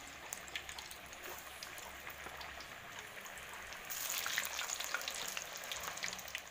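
Batagor dough frying in hot oil in a wok: a steady sizzle with many small pops. It grows louder about four seconds in, as more pieces go into the oil.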